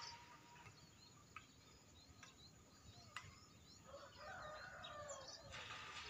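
Faint, scattered chirps of small birds and a few sharp clicks, with a rooster crowing faintly about four seconds in; a short burst of hiss near the end.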